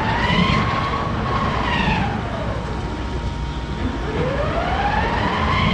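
A wailing siren, its pitch rising and falling slowly about once every four seconds, over a steady rumble.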